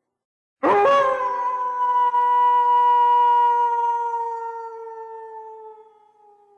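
A single long wolf howl: it starts suddenly about half a second in, swoops up briefly, then holds one clear pitch that slowly sinks and fades away over about five seconds.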